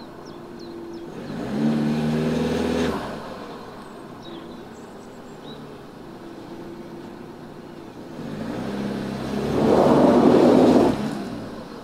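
Front-wheel-drive horse box engine revving in two bursts, a short one about two seconds in and a longer, louder, rougher one near the end, as the driver tries to get the front wheels to grip. The horse box is stuck with its front end sunk into the ground, and the wheels find no purchase.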